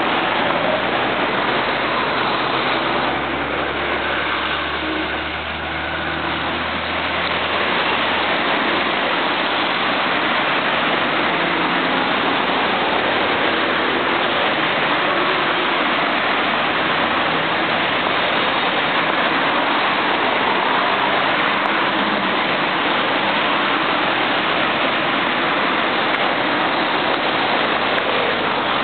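Steady rush of busy multi-lane city road traffic: cars and tyres passing continuously, with a low engine hum from a passing vehicle a few seconds in.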